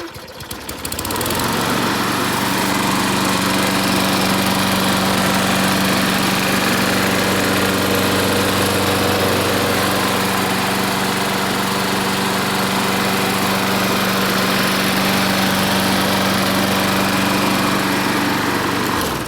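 John Deere JS30 walk-behind mower's 6.75 hp Briggs & Stratton flathead engine cranking over briefly, catching after about a second and a half and then running steadily at speed, starting to wind down at the very end.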